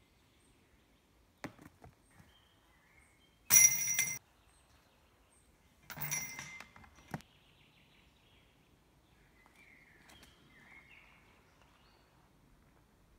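Chains of a disc golf basket jangling as putted discs strike them: once about three and a half seconds in, the loudest sound, and again, weaker, about six seconds in. A light knock comes before them, and faint birds chirp near the end.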